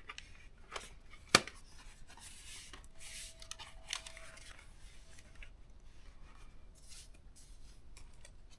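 Plastic parts of a ThinkPad T430 laptop being handled during reassembly: light rustling and scattered clicks, with one sharp click about a second and a half in.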